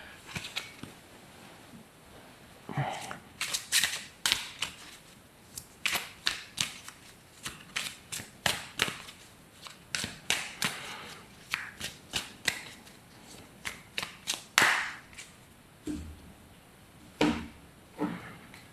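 Deck of Oracle Belline cards being shuffled by hand: a run of short, sharp snaps of card on card, a few a second, thinning out near the end.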